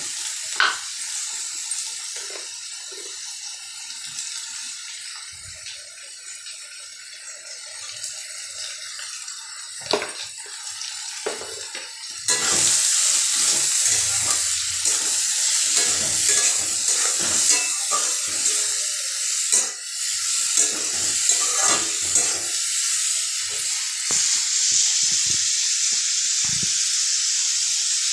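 Bottle gourd pieces sizzling in a steel kadhai, with a steel spatula stirring and scraping against the pan and now and then knocking it. The sizzle grows louder about twelve seconds in.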